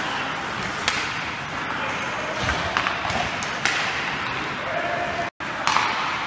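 Ice hockey play in a rink: steady arena noise and skates on the ice, with a few sharp clacks of stick on puck and players' voices. The sound drops out for an instant near the end.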